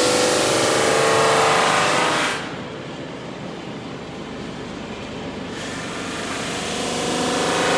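IWM double drum sander running, loud while a board passes through the sanding drums, with a sudden drop a little over two seconds in to the lower hum of the machine running unloaded. The sound builds again near the end as the next board is fed in.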